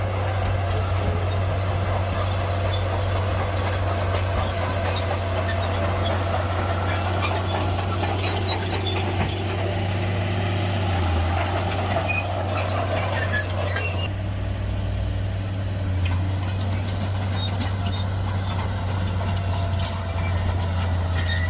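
Heavy diesel earthmoving machinery running with a steady deep engine drone and scattered light clanks and rattles. The higher sounds change abruptly about two-thirds of the way through while the engine drone carries on.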